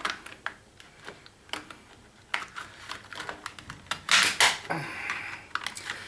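Flathead screwdriver prying at the snap-fit seam of a plastic remote-control case: a scatter of small plastic clicks and creaks, louder for a moment about four seconds in as the clips give.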